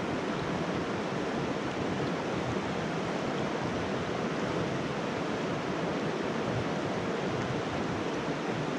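Steady rush of a shallow mountain trout stream running over rocks and riffles.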